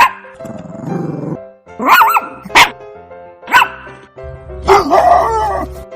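Dog barking in several short, sharp barks, with other animal calls in between, over steady background music.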